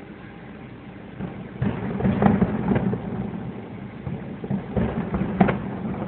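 Distant fireworks shells bursting, a run of rumbling booms from about a second and a half in until near the end, heard from inside a car over the steady hum of its idling engine.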